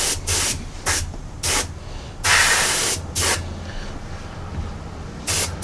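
Paint spray gun hissing in a series of short bursts, with one longer pass near the middle, laying on a coat of transparent orange DuraCoat firearm finish; a steady low hum runs underneath.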